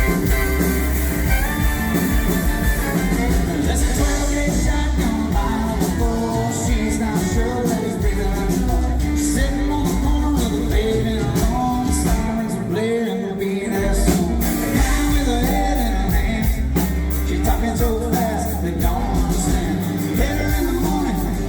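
Loud country-rock band playing a song with a lead singer, over steady drums and heavy bass.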